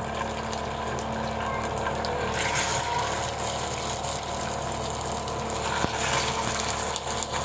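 Seekh kababs sizzling as they shallow-fry in hot oil in a kadhai: a steady crackling hiss.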